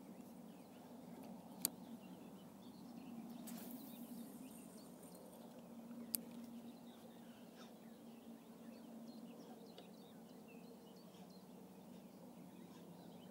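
Two sharp clicks, about a second and a half and six seconds in, from a spinning rod and reel being handled. Under them runs a faint steady low hum with faint bird chirps.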